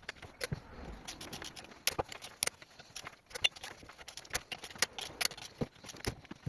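Irregular clicks, taps and light metallic knocks from hand tools and parts during reassembly of a Subaru Impreza manual gearbox.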